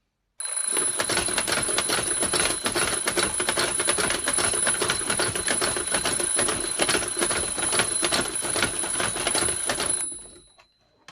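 An alarm bell ringing continuously, a rapid metallic rattle carrying two steady high tones, which stops abruptly about ten seconds in with the tones dying away just after.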